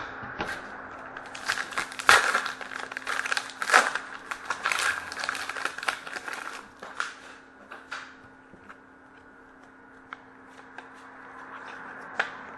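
A trading card pack wrapper being torn open and crinkled, a dense crackling that thins out about seven seconds in to a few scattered clicks and taps as the cards are handled.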